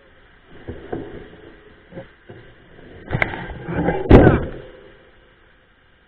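Mountain bike knocking and rattling as it jolts over a rough, muddy trail through brush: a few scattered knocks, then a louder cluster of bangs and rattles about three to four seconds in.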